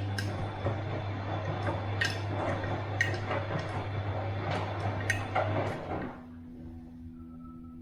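Bosch washing machine washing: the drum turns with a low motor hum while water and laundry slosh, with scattered knocks. The tumbling stops about six seconds in, leaving a faint steady hum.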